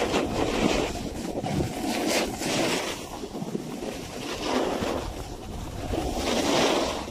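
Snowboard sliding and scraping over snow, rising and falling in swells every second or two as the board turns, with wind buffeting the microphone.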